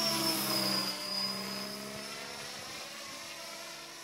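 Align T-Rex 550 radio-controlled helicopter flying close past: a steady high whine from its motor and rotor blades, loudest at first and dipping slightly in pitch as it moves away.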